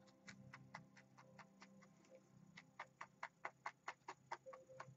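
Paint-loaded bristle brush tapping against a canvas in a quick run of light taps, fainter at first and then louder and more regular at about five taps a second: oil paint being stippled on to make grass.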